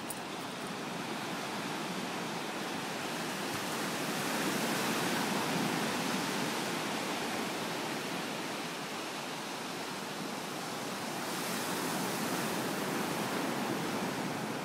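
Ocean surf breaking and washing up the shore, a steady hiss that swells twice, about four seconds in and again near the end.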